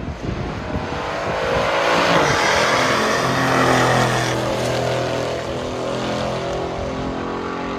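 Two stock V8 muscle cars launching off the drag strip's starting line and accelerating hard side by side, the engine note climbing in pitch over the first few seconds, loudest a few seconds in, then levelling off as the cars pull away.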